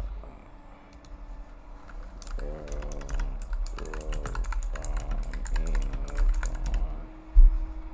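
Typing on a computer keyboard: a run of quick keystrokes and clicks, with faint voices underneath. A single low thump near the end.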